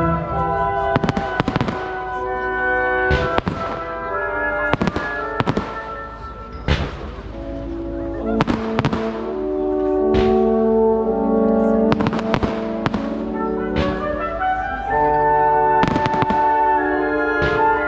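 Aerial firework shells bursting with sharp bangs every second or two, irregularly spaced, over orchestral music with brass.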